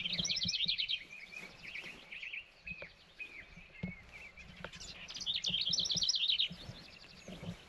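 Songbirds singing: a rapid run of quick notes at the start and again about five seconds in, with scattered chirps between, and faint low knocks underneath.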